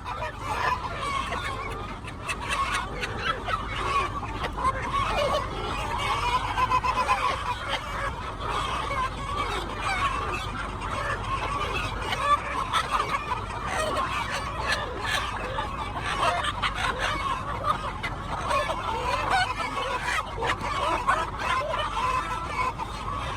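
A flock of chickens clucking, many short calls overlapping continuously.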